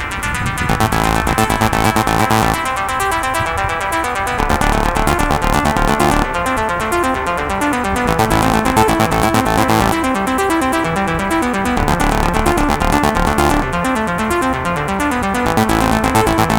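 Electronic dance music with a steady beat and synthesizer chords, its phrases repeating every few seconds.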